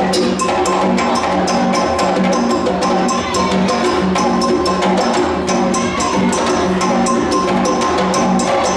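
West African percussion ensemble playing a steady rhythm: fast, even, sharp clicks over a repeating low drum pattern.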